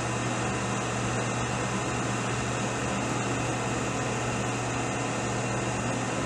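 Milling machine running steadily, its spindle turning a slot cutter that is cutting the extractor slot into the steel breech end of a rifle barrel. A steady hum with a constant low tone.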